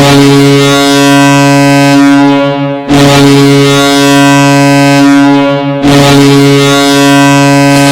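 The Halifax Mooseheads' arena goal horn, a deep horn sounding three long blasts back to back, each about three seconds, signalling a goal.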